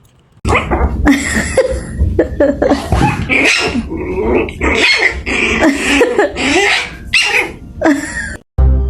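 A dog barking and vocalizing loudly in a long string of short calls that bend up and down in pitch, cutting off abruptly near the end.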